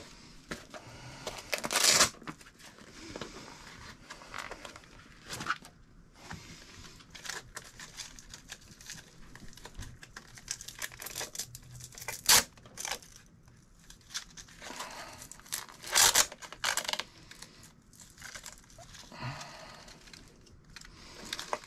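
Crinkling, rustling and ripping handling noises with a few sharp clicks, the loudest about 2, 12 and 16 seconds in, as batteries are fitted and strapped into a 1/5-scale RC buggy's battery tray.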